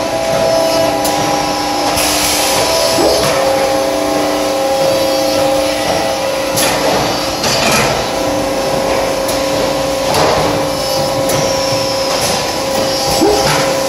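Monark roll-fed thermoforming machine running: a steady mechanical hum of motors and pumps with several tones that switch on and off, broken several times by sharp hisses of compressed air as its pneumatic valves cycle.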